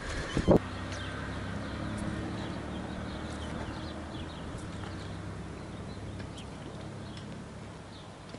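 A single sharp knock about half a second in, then a steady low hum with small birds chirping faintly over it.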